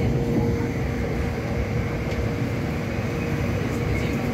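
Hong Kong Light Rail Phase III car running along the track: a steady low rumble with a constant hum.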